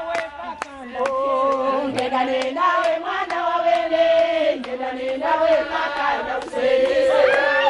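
A group of women singing a traditional welcome chant together in unison, with held notes that step up and down in pitch, and sharp claps in the first second.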